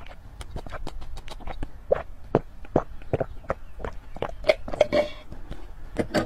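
Close-miked sipping through the straw of a drinking glass: wet mouth clicks, small slurps and swallows at an irregular pace.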